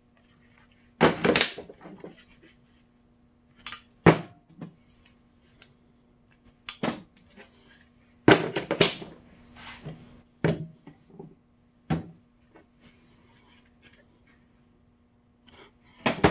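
A series of sharp, irregular knocks and clatters, like wood or hard objects being bumped and set down, over a faint steady hum.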